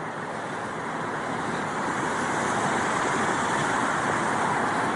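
Road traffic noise: the steady hiss and hum of passing and distant vehicles, swelling slowly over the first few seconds and then holding.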